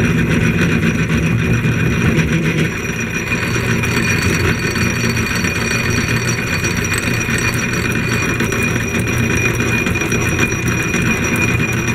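A.D. Vance No. 12 blacksmith drill press, plugged in and running, with a steady mechanical whine while its bit works in a metal plate. A lower hum drops out about three seconds in.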